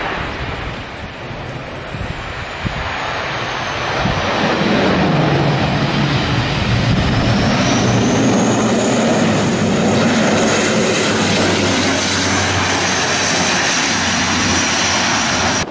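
Twin-turboprop airliner landing and rolling out along the runway. The engine and propeller noise grows louder about four seconds in, with a high whine that falls and then rises again over a steady low hum.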